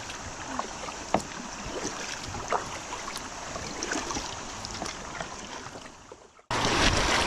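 Kayak on a shallow river: running water around the hull with scattered light knocks and clicks as the boat is moved. The sound fades out, then cuts abruptly to louder rushing water and wind noise about a second before the end.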